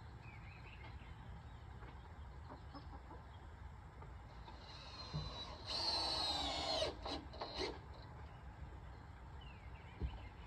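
A rooster crowing once, about halfway through: a long sustained call that falls away at the end, followed by two short calls. A single low thump near the end.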